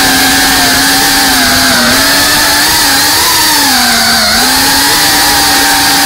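FPV racing drone's brushless motors and propellers whining, heard loud from the camera on the drone. The pitch dips twice as the throttle eases, the second time about four seconds in, then climbs again near the end.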